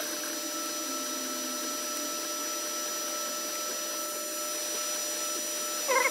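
Creality Ender 3 3D printer running a print: a steady whir from its cooling fans with the hum of its stepper motors as the print head moves. Near the end come a few short, loud, squeaky chirps that slide in pitch.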